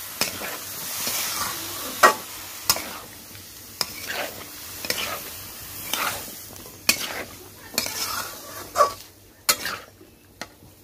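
Spatula stirring and scraping chopped white pumpkin in a metal kadai, the pieces frying with a sizzle. Knocks and scrapes against the pan come roughly once a second, and the sizzle fades toward the end.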